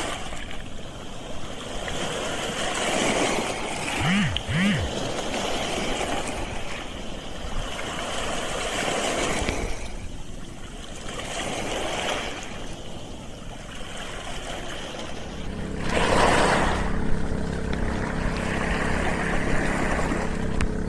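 Beach surf washing in and out, the noise swelling and falling every few seconds. About three-quarters of the way through an engine starts running steadily at idle underneath it.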